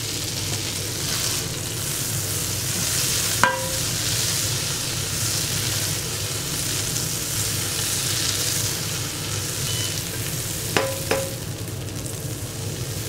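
Butter sizzling and foaming in a hot coated frying pan, a steady frying hiss over a low hum. There is a sharp knock about three and a half seconds in and a couple more near the end.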